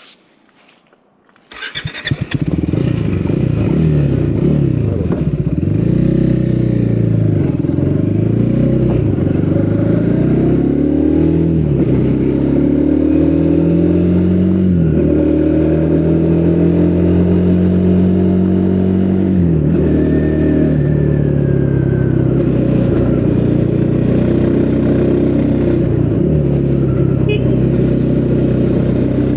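Triumph Speed 400's single-cylinder engine through its stock exhaust, starting about a second and a half in. It then runs loud, its pitch climbing and dropping back again and again as the bike pulls away through the gears.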